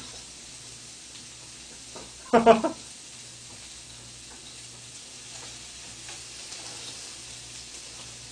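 Thin-sliced pork belly sizzling steadily on a grill tray, with faint clicks of metal tongs moving the strips. A brief loud burst of voice, like a laugh, cuts in about two and a half seconds in.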